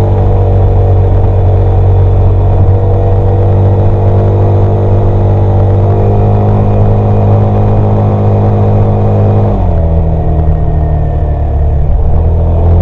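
Yamaha XMAX 300 scooter's single-cylinder four-stroke engine and exhaust running steadily at cruising speed, picked up from under the seat. About ten seconds in the engine note drops as the throttle eases off, then rises again near the end.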